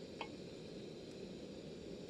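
Faint steady low background noise, with a single brief click near the start.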